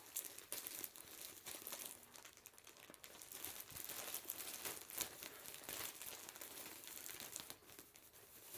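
Clear plastic bag crinkling as skeins of yarn are handled and pulled out of it: a run of faint, irregular crackles.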